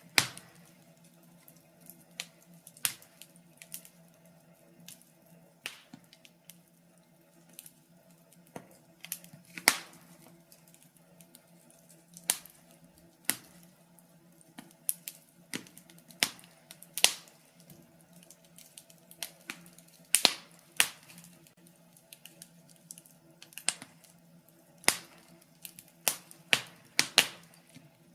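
Wood fire in a fireplace crackling, with irregular sharp pops, some louder than others, over a faint steady hum.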